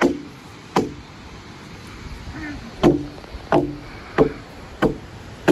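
A series of sharp knocks, each with a brief hollow ring. One comes under a second in, then about two seconds of gap, then a run of knocks roughly two-thirds of a second apart.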